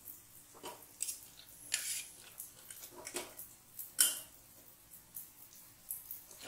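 Metal spoons clinking and scraping against a stainless-steel pot and plate as jalebis are lifted out of sugar syrup: a handful of scattered light clinks, the sharpest about four seconds in.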